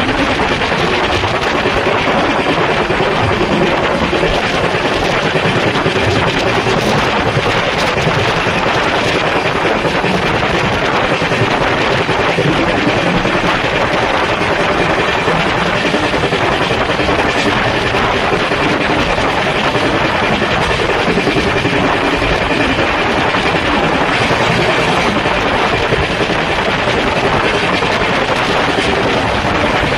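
Steady, loud rushing noise of a moving train.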